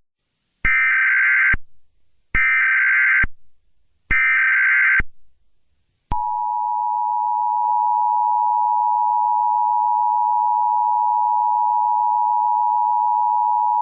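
Emergency Alert System signal: three short bursts of digital data tones (the SAME header), each just under a second long, followed about six seconds in by the steady two-tone EAS attention signal.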